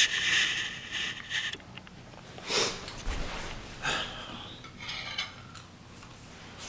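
Kitchen sounds while getting water on to boil: a short hissing rush of running water for about a second and a half, then a few separate knocks of pots and utensils.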